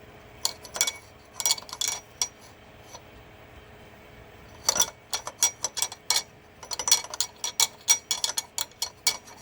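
Sharp metallic clicks and clinks of hand tools on metal: a few scattered strikes in the first two seconds, then a quicker run of about four a second through the second half.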